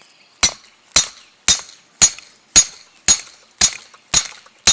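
Hammer striking hot rebar being forged into a knife blade: nine steady, evenly spaced blows, about two a second, each with a short metallic ring.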